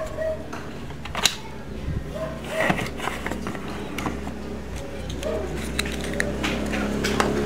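Hard plastic clicks and rattles as a plastic toy car is handled: a wheel is pressed onto it and its hinged top is swung open, with a plastic dough tub handled near the end. Several sharp clicks stand out among the quieter handling noise.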